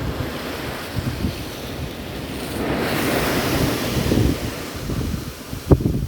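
Sea waves washing and splashing with wind buffeting the microphone; the rush of water swells about three seconds in and eases off again.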